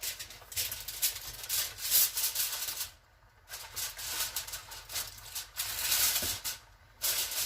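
Roasting pan being covered: crinkling and rustling in irregular bursts, with two short pauses, about three seconds in and again about a second before the end.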